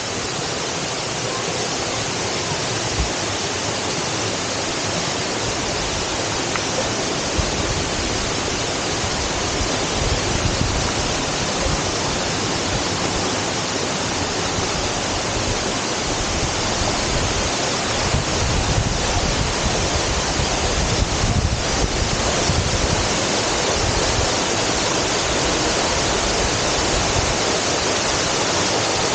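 Waterfall rushing in a steady, dense roar of falling water, with wind buffeting the microphone now and then from several seconds in.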